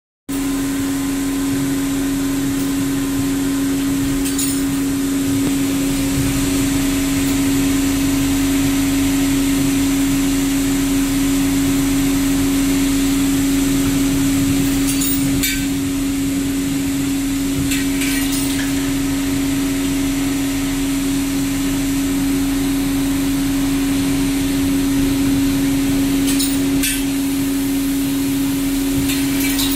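Valve groove grinding machine running with a steady motor hum, with a few light clicks scattered through.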